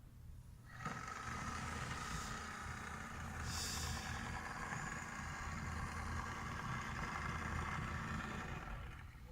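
Model purse-seiner boat's small motor running steadily, starting about a second in and stopping just before the end.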